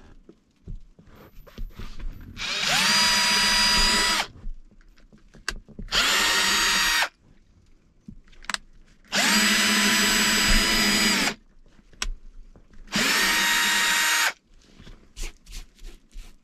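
Cordless drill boring holes in four runs of one to two seconds each. The motor's whine rises quickly as it spins up at the start of each run, then holds steady until the trigger is released.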